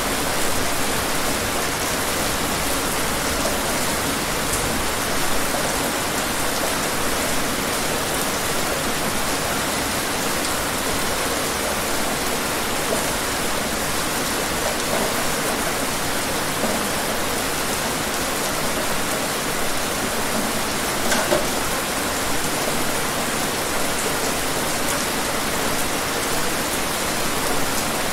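Steady rainfall: an even hiss of rain with a few louder individual drops now and then.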